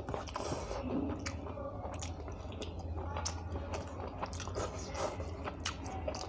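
Close-miked chewing of a mouthful of rice with saag curry and fried chicken liver: a run of irregular wet smacks and clicks from the mouth. A steady low hum lies underneath.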